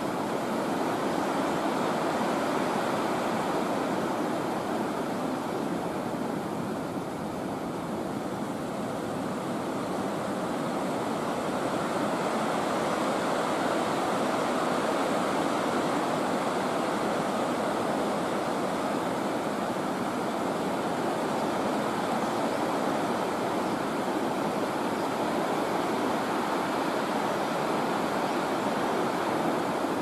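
Steady rush of flowing river water, an even noise with no breaks.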